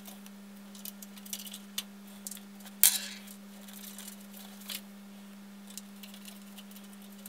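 Light metallic clicks and clinks, with one sharper click about three seconds in: thumb screws being handled and fastened to mount a PC power supply in its case. A steady low hum runs underneath.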